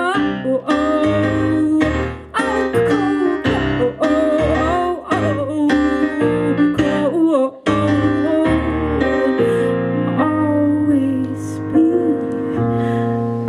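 Live piano ballad: keyboard chords with a woman's voice singing a melody over them.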